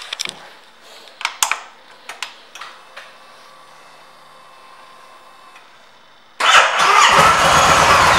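2018 Yamaha Star Eluder's 1,854 cc air-cooled V-twin being started: a few clicks and a faint steady hum as the ignition is switched on, then about six seconds in the engine cranks, catches suddenly and settles into a loud, steady idle.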